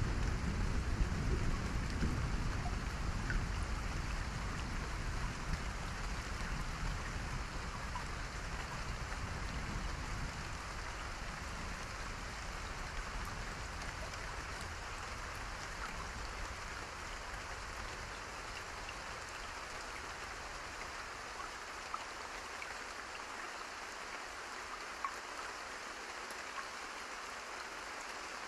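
Steady rain hissing on a surface, with a low rumble at the start that fades away over the first twenty seconds or so. There are a few separate drop ticks near the end.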